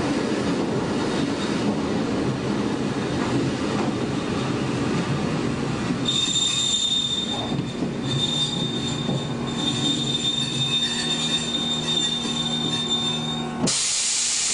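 Shin-Keisei 500-series electric car with nose-suspended traction motors running along the track, heard from the cab: a dense rumble of wheels and running gear, and from about six seconds in a low motor hum under a high, steady squeal of wheels on rail that breaks off briefly a few times. Near the end the train sound cuts off abruptly into a loud, even hiss like blank tape.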